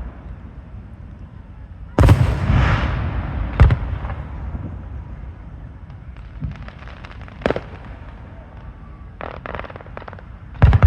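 Aerial fireworks shells bursting: a loud boom about two seconds in with a rolling echo, a sharp bang shortly after, then crackling bursts with a sharp pop in the middle, a few more crackles, and another loud boom at the very end.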